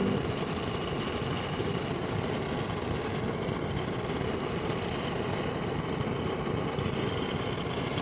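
Butane gas-canister torch burning with a steady hissing roar, its flame held against wet firewood that will not catch.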